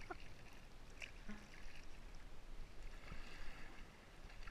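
Sea water slapping and splashing against a kayak's hull, irregular and choppy, with a low rumble of wind on the microphone.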